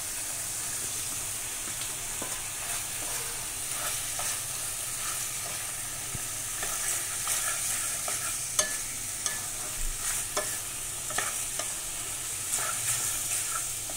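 Cooked macaroni being stirred into a sizzling tomato and chilli sauce in a pan with a wooden spatula: a steady frying hiss with short scrapes and knocks of the spatula against the pan, more frequent in the second half.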